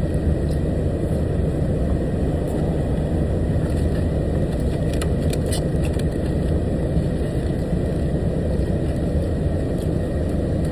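Steady low rumble of a truck's engine heard inside the cab, with a few faint clicks in the middle.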